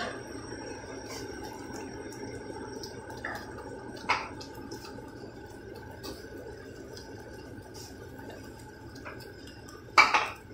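Tomato-onion masala simmering in a pan, a steady bubbling with small scattered pops, and a sharp knock about ten seconds in.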